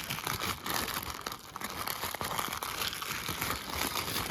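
Packaging wrapping being handled and unwrapped by hand: a continuous, irregular crinkling and rustling.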